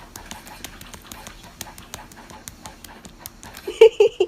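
A dog panting rapidly, in quick short breaths. Near the end a loud voice breaks in.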